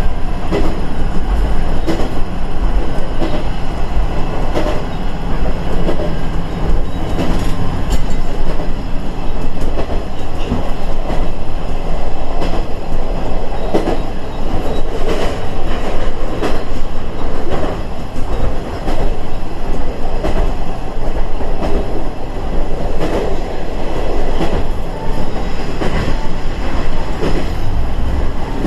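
KiHa 110 series diesel railcar running along the line, heard from inside at the front: a steady diesel rumble with wheels clicking over rail joints at irregular intervals.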